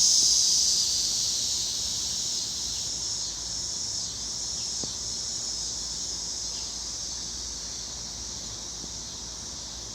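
Chorus of cicadas: a steady, high-pitched buzzing that fades gradually.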